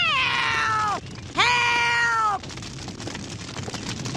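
An elderly woman's cartoon voice wailing "Heeelp!" twice, each cry held for about a second and sliding down at its end. The second cry comes about a second and a half in.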